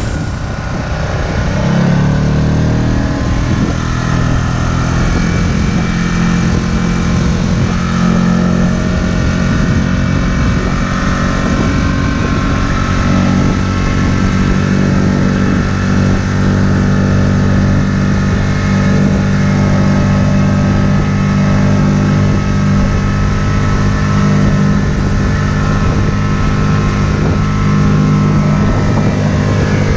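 5 hp Mercury propane outboard motor revving up over the first couple of seconds, then running steadily at high speed as it pushes the inflatable boat onto plane.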